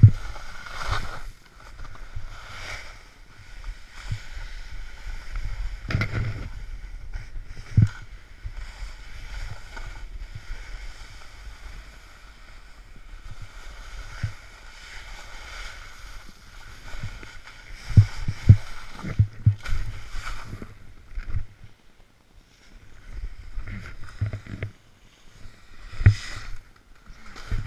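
Snowboard sliding and scraping through snow in a wooded glade, a steady rough rushing with a number of sharp thumps as the board hits bumps, heard from a camera carried by the rider.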